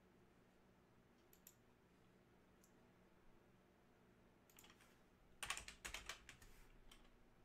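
Faint computer keyboard typing: a couple of single key clicks, then a quick run of keystrokes about five and a half seconds in.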